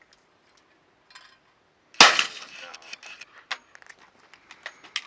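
A single shotgun shot about two seconds in, with a short echoing tail, followed by a scatter of small sharp clicks and clinks.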